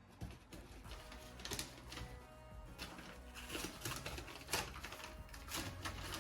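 A stuck door being pushed and worked against something blocking it: an irregular run of knocks, rattles and scrapes, with a sharper knock about four and a half seconds in. Background music plays underneath.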